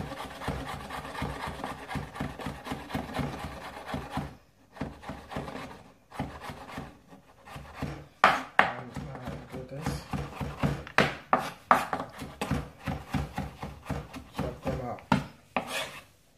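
Knife chopping sliced cucumber on a wooden cutting board: a fast run of blade strokes knocking on the board, a short break about four seconds in, then slower, louder separate chops through the second half.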